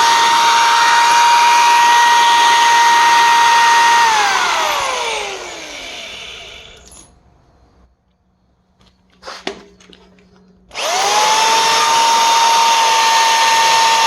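Electric drill spinning a valve lapping tool, lapping a valve into its seat with lapping paste. A steady high whine winds down about four seconds in. After a few seconds of quiet with a small click, the drill spins quickly back up to speed near the end.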